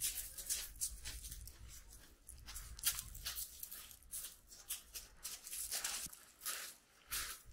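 Footsteps crunching on a shingle beach of loose pebbles, an uneven step about every half second to a second.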